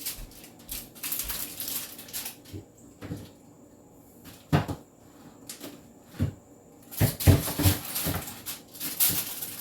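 Food packages and containers being handled and set down on refrigerator shelves: rustling, with a few sharp knocks as items are put in place.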